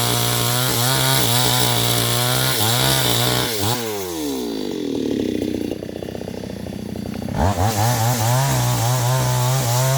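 New West 628 two-stroke chainsaw running at high revs with its pitch wavering, dropping toward idle about four seconds in, then revving back up about three seconds later.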